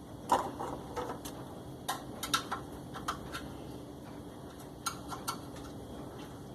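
Scattered light clicks and knocks of washing-machine agitator mechanism parts being handled and taken apart, the loudest about a third of a second in.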